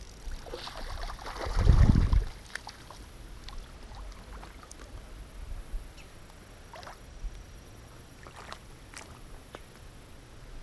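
Shallow creek water sloshing and splashing as a hooked smallmouth bass is landed by hand. The loudest rush comes about two seconds in, followed by faint scattered clicks and drips.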